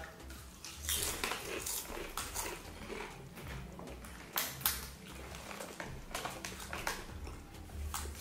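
People chewing crisp chicken-flavoured crackers (keropok perisa ayam), an irregular scatter of sharp crunches with a couple of louder ones about halfway through, over a faint low hum.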